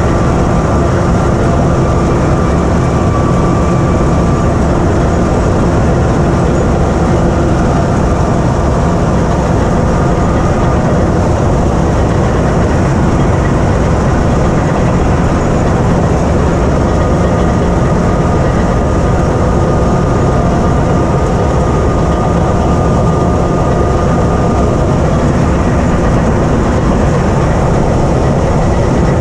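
Caterpillar D8K crawler dozer's diesel engine running steadily, loud and close from the open operator's seat, with the clatter of its steel tracks as it travels.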